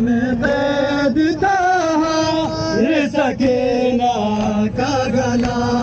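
A man chanting a melodic mourning lament, with long held notes that slide in pitch and short breaks between phrases.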